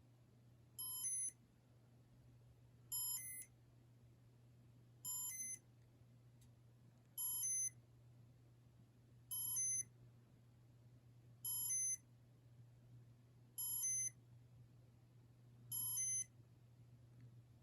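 Electronic beeper of a 1992 Casablanca Stealth Comfort Touch ceiling fan chirping in test mode. It gives short multi-tone beep bursts about every two seconds, eight in all, over a faint steady low hum.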